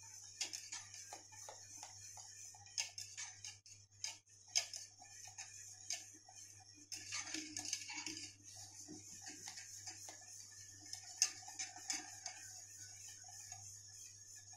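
Wire whisk clicking and scraping against the sides of a stainless steel pot in quick, irregular strokes as a milk pudding is beaten on the stove while it thickens.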